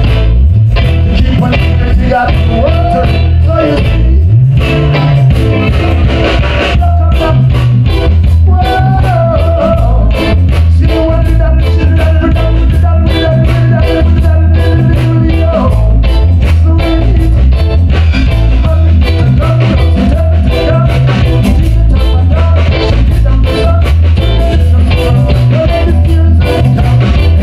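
Live reggae band playing loudly through a PA: a pulsing bass line and drums, with a male lead singer.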